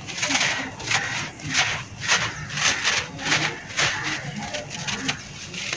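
Dry, gritty sand-and-dust chunk being crushed and rubbed in a gloved hand, giving a run of sandy crunches about two a second as the grit crumbles and pours away.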